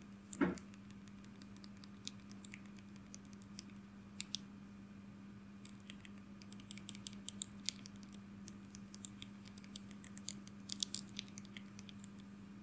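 Faint clicking of keys or buttons being pressed: scattered single clicks, then quick runs of several clicks about halfway through and again near the end, over a steady low hum.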